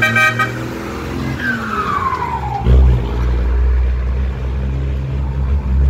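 Ford F-13000 diesel truck with a whistle comb in its turbocharger: the turbo whistle falls in pitch as it spools down. About halfway through, a loud, steady low engine drone sets in and carries on.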